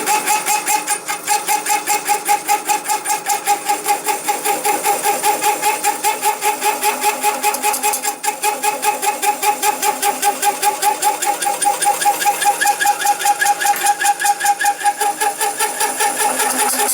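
35 mm carbide-tipped hole saw cutting through 3 mm plate at 250 RPM. It makes a steady ringing cutting sound that pulses evenly about four times a second, once per turn of the saw.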